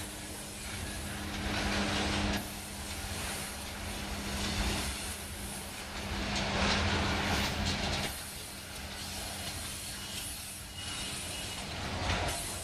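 Cars of a freight train rolling past: a steady rumble and rattle of steel wheels on the rails that swells several times as cars go by, with a hissing edge. A low steady hum runs under it for the first two-thirds.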